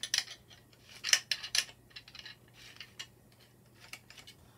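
Small clicks and clinks of 3D-printed plastic parts and metal hardware being handled while the winch spool's lock nut is fitted: a few sharp clicks in the first two seconds, then fainter ticks.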